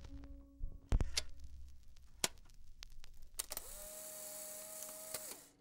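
Camera sound effect: a few sharp mechanical clicks, then a steady motorized whir that cuts off abruptly near the end.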